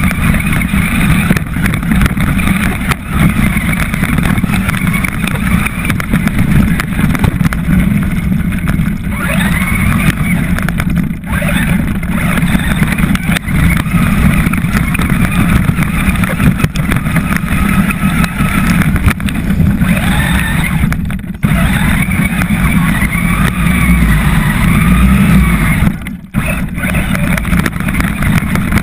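Traxxas RC car's motor whining up and down with the throttle over a heavy rumble of the chassis and tyres on grass and gravel, heard from a camera mounted on the car's roof. The sound cuts out briefly twice in the second half.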